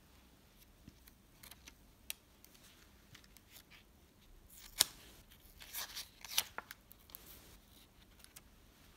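Pages of a paperback book being handled and turned: faint rustling and small clicks, with one sharp snap of paper about five seconds in and a short run of rustling just after.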